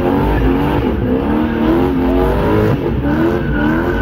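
Classic car doing a burnout: the engine is held at high revs that rise and fall repeatedly while the spinning rear tyres squeal.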